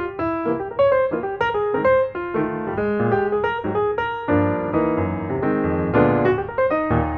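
Background piano music: a melody of quick single notes, with fuller, denser chords about halfway through.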